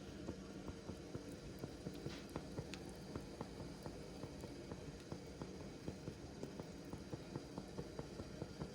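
Faint light clicks and taps, a few a second and unevenly spaced, over a low steady hum.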